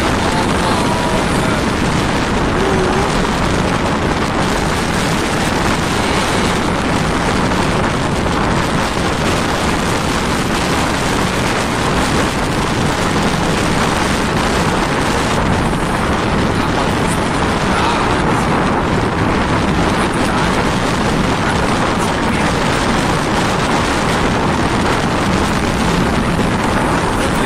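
Strong wind buffeting the microphone over the rush of a choppy sea, loud and steady.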